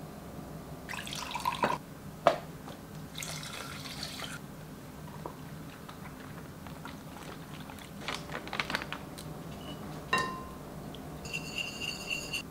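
Quiet kitchen prep sounds: scattered light clicks and handling noises, a clink with a short ring about ten seconds in, and near the end a whisk stirring liquid in a glass bowl.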